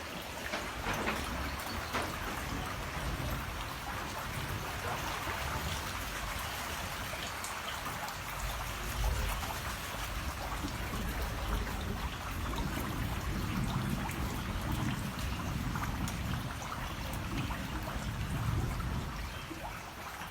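Steady hiss of water, like rain, with uneven low rumbling underneath.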